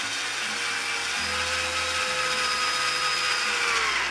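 Electric drill running steadily as a quarter-inch bit bores through a plastic drain pipe.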